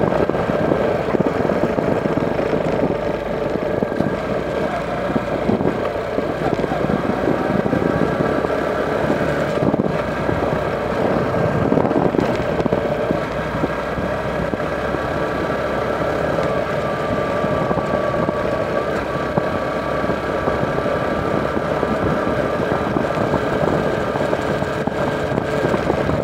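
Motorcycle engine running steadily while riding at an even speed, with wind and road noise.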